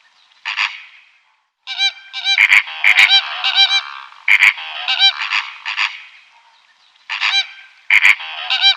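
An animal's loud pitched calls, repeated in clusters of several quick calls with short pauses between, the busiest run near the middle.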